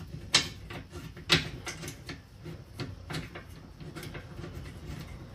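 Scattered clicks and small knocks of a hand working a nut and bolt at a car's rear control arm mount, with two sharper knocks, about a third of a second in and again just over a second in.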